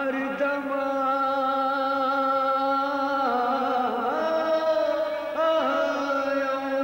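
Background music: a slow melody of long held notes, sliding between pitches a few times.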